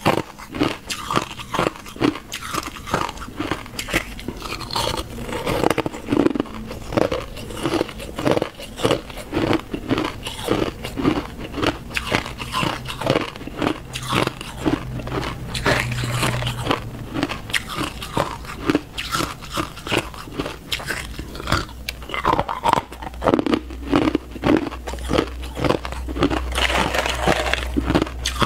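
A person biting and chewing hard clear ice, close-miked: a steady run of sharp crunches, about two or three a second.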